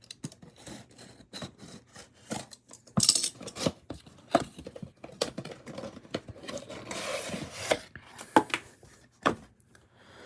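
Hands opening a cardboard action-figure box: scattered clicks and knocks of handled packaging, with a longer rustling, tearing scrape about seven seconds in.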